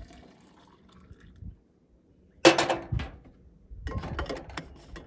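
The tail of water pouring from a metal camp pot into an insulated mug, then a sudden loud metallic clank of cookware with a short ring about two and a half seconds in, followed by small clicks and scrapes as the mug's lid is screwed on.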